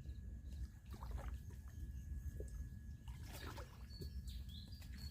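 Water trickling and splashing in a few short bouts as a fish trap is handled at the water's edge, with a low steady rumble under it. Short high bird chirps come in near the end.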